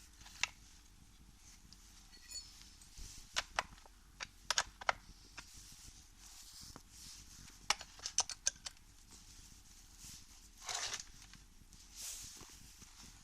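Scattered sharp clicks and light knocks of small chainsaw chain-tensioner parts being handled, several in quick clusters, with a short scraping rattle about eleven seconds in.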